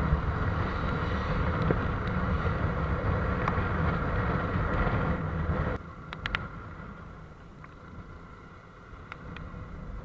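Motorcycle riding on a wet road, with wind and engine and tyre noise rumbling heavily at a mount-level microphone. About six seconds in it drops abruptly to a quieter ride noise with a few short clicks.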